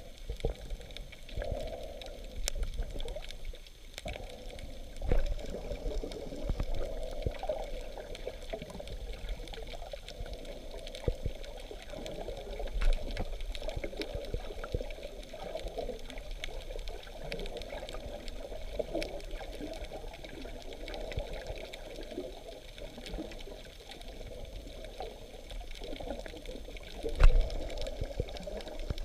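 Water sloshing and gurgling around an underwater action camera while snorkeling, a steady wash with scattered small clicks. A sharp louder knock comes near the end.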